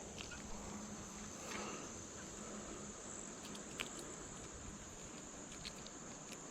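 Faint, steady, high-pitched chorus of insects, with a few faint ticks.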